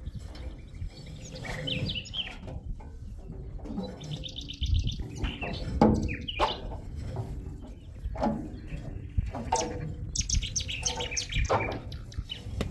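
Birds chirping in quick, repeated trills and short calls over a low, steady rumble.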